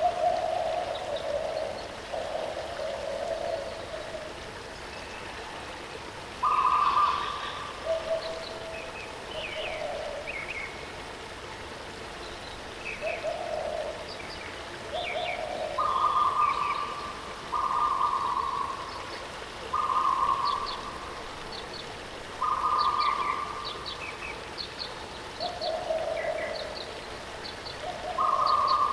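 Waterfall's steady rush under birdsong: a bird repeats held notes about a second long, alternating between a lower and a higher pitch, while other birds give short high chirps.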